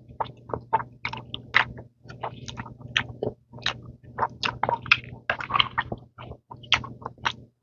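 Close-miked chewing of a mouthful of sausage: irregular clicks and smacks of the mouth, several per second, over a faint steady low hum.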